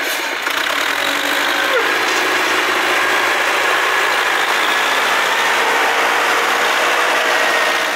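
LKT 80 forestry skidder's diesel engine running steadily as the machine drives along the trail.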